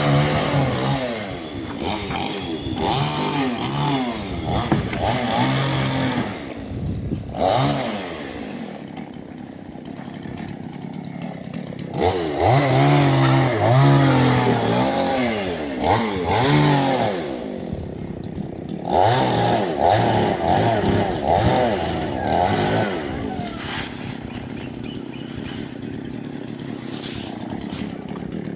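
Chainsaw cutting into a coconut palm trunk, its engine revving up and dropping back again and again. It eases to a lower, steadier note for a few seconds about a third of the way in and again near the end.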